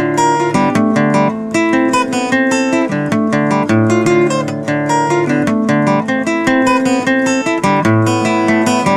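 Background music: strummed and plucked acoustic guitar playing steadily.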